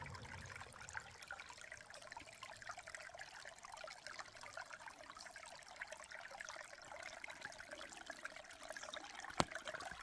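Shallow spring water trickling over stones, a faint steady babble. A single sharp click near the end.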